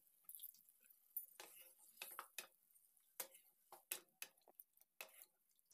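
Near silence with faint, scattered clicks and taps of a wooden spatula stirring vegetables in a thin milk gravy in a kadai.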